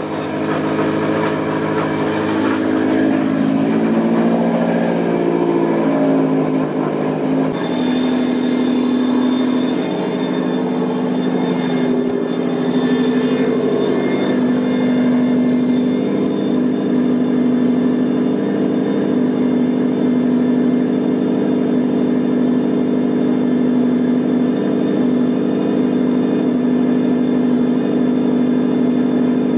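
A freshly rebuilt Subaru STI 2.5-litre turbocharged flat-four running loud at a cold fast idle on its first start, with the whine of a power steering pump that is low on fluid. About seven seconds in the note changes suddenly and a steady high whine sets in.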